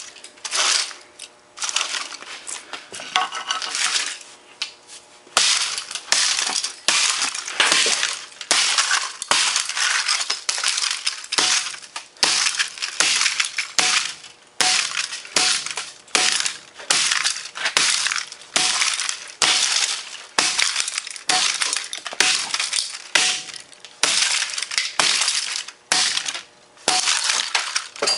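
A hammer repeatedly smashing a laptop's motherboard and plastic casing, a steady run of sharp crunching blows, more than one a second, with plastic shards and small parts clinking.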